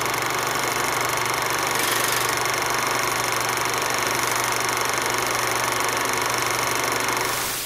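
Steady mechanical whir in the style of an old film projector running, even throughout. Right at the end a quick falling sweep cuts it off.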